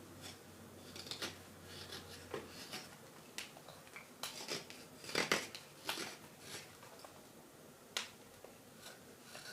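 Carving knife taking short slicing cuts on a green wild-cherry wooden spoon: a series of irregular crisp scrapes and clicks, a little louder about five seconds in.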